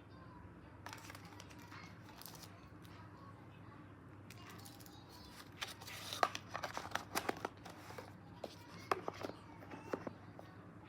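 Packaging being handled and opened: bursts of crinkling, tearing and sharp clicks, clustered about halfway through and again near the end.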